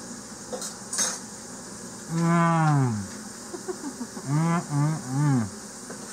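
A man humming "mmm" with pleasure while eating, mouth closed: one long hum falling in pitch, then three short hums that rise and fall. A faint crunch comes about a second in.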